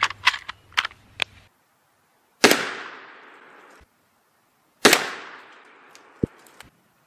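Two rifle shots from a scoped bolt-action .350 Legend firing 255-grain subsonic ammunition, about two and a half seconds apart. Each is a sharp report followed by a ringing tail that fades over about a second. A few light clicks come before the first shot.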